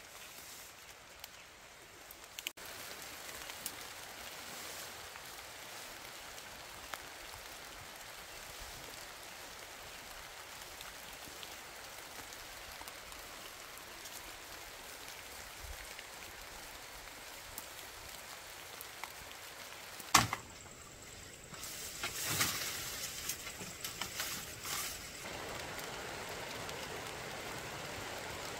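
Steady outdoor hiss. About twenty seconds in comes a single sharp knock, followed by a few seconds of louder rustling and crackling before the hiss settles again.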